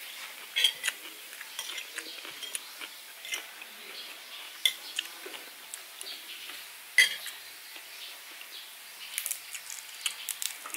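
Cutlery clinking against plates and bowls during a meal, in scattered sharp clicks, the loudest about seven seconds in.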